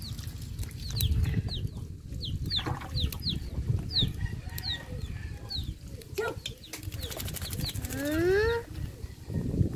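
Birds chirping outdoors in quick, repeated high falling notes, with one longer rising call near the end. Underneath is a low rumble with a few sharp splashes and knocks from water and handling as the dog is scrubbed.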